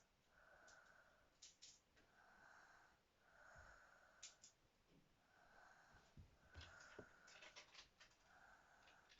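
Faint, slow breathing of someone asleep: soft wheezy snoring breaths, each about a second long with short pauses between. A few faint clicks and low thumps come between the breaths.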